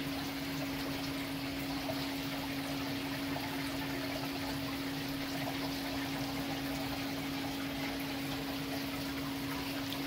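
Steady rushing and bubbling of water circulating in a large saltwater aquarium, with a constant steady hum beneath it.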